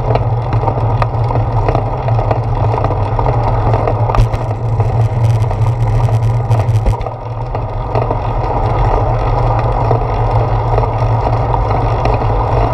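Wind buffeting a handlebar-mounted action camera on a moving bicycle, a steady low rumble mixed with tyre and road noise. A run of fast light clicking joins it about four seconds in and stops about three seconds later.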